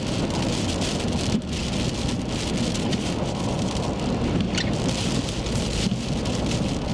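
Rain hitting a vehicle's windshield and roof, heard from inside the cab as a dense, steady spatter of drops over a steady low rumble.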